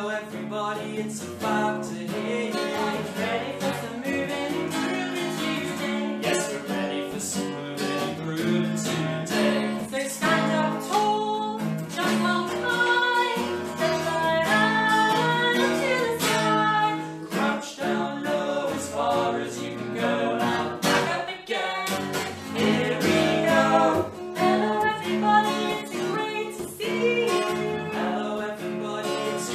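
Acoustic guitar strummed steadily while a man and a woman sing a children's song together.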